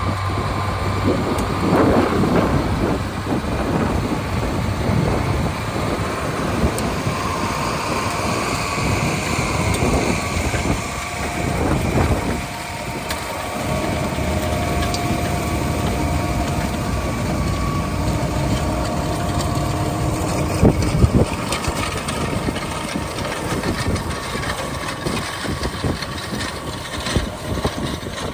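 Heavy sugar beet harvest machinery and vehicle engines running continuously, with steady whines that shift in pitch. There is a sharp knock about three-quarters of the way through.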